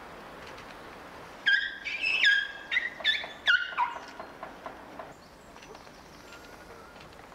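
Young African elephant calves squeaking: a quick run of about half a dozen high squeaks starting about a second and a half in, some sliding down in pitch at the end, during play.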